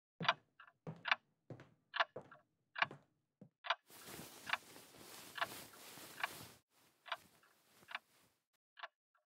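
A clock ticking steadily, a little faster than once a second. For a few seconds in the middle there is a soft rustle of bedding as someone lies down on the bed.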